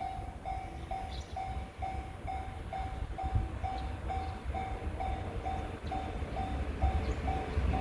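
Japanese level-crossing warning bell ringing, about two strikes a second, over the low rumble of an approaching Shinano Railway 115-series train that grows louder near the end.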